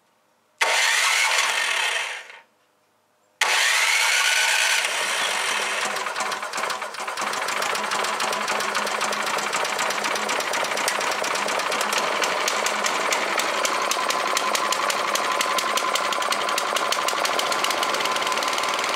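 Troy-Bilt Storm 2620 snowblower's engine cold-started for the first time on its plug-in electric starter: the starter spins up with a rising whine and stops, then a second try about three seconds in catches, and the engine settles into a steady, even run at low throttle.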